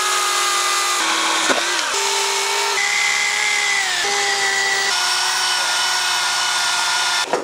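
Chainsaw cutting into a block of ice, running steadily. Its pitch jumps up or down several times as the load changes, and it stops abruptly near the end.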